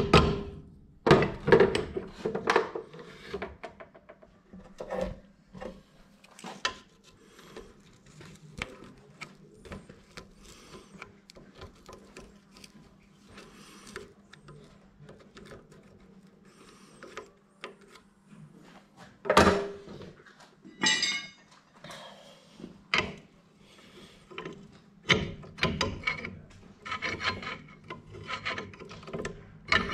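Scattered clicks, knocks and scraping of tools and metal gearbox parts being handled during repair work on a Yağmur Yet 510 motor cart's gearbox. There is a louder knock about two-thirds of the way in and a busier run of clatter near the end.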